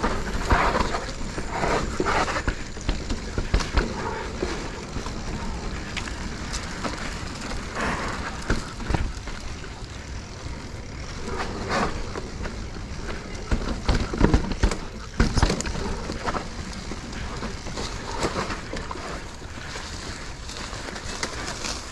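2022 Specialized Stumpjumper Evo Pro mountain bike riding a rough dirt trail: a steady rush of tyre noise with rattling from the chain and frame and sharp knocks over bumps, the hardest cluster of hits about 14 seconds in.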